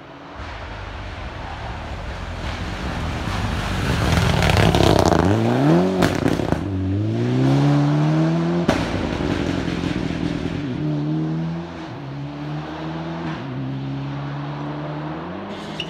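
Rally car accelerating hard along a stage, its engine note climbing and dropping several times as it shifts up, loudest as it comes closest, with a couple of sharp cracks.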